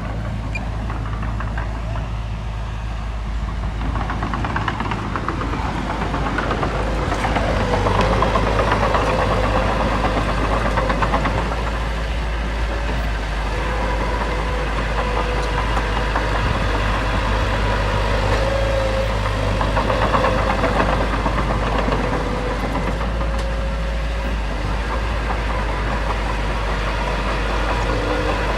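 Diesel engine of heavy earthmoving machinery running steadily, growing somewhat louder a few seconds in.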